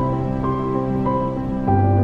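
Background music: held melodic notes over a sustained bass note, with the bass moving down to a lower note near the end.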